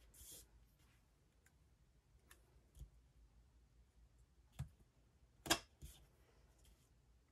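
Fingertips pressing and smoothing stickers onto planner paper: a short paper rustle at the start, then a few light taps and clicks, the sharpest about five and a half seconds in.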